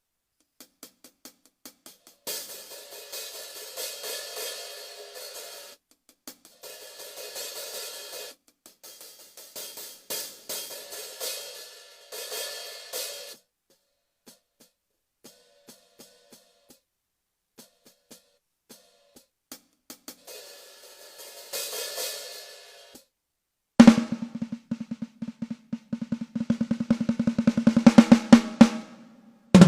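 Sampled electronic drum sounds from a 2box drum module, triggered by strikes on a homemade 3D-printed pad. Long ringing crash-like hits come in spells over the first half, then after a pause a fast roll of drum hits grows quicker and louder near the end.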